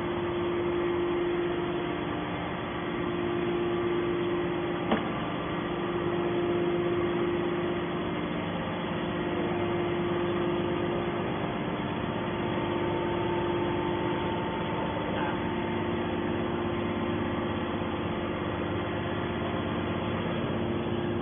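Hydraulic scrap metal baler's motor and pump running with a steady hum and a few held tones, with one sharp click about five seconds in.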